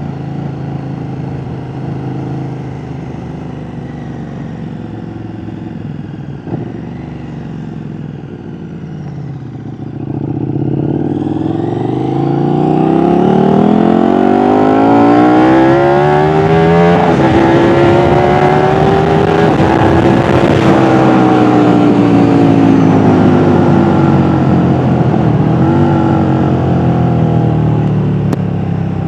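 KTM 1290 Super Duke R's V-twin engine running at low revs. About a third of the way in it is opened up and accelerates with a rising pitch. Its note drops suddenly at an upshift, climbs again, then falls slowly as the throttle is eased near the end.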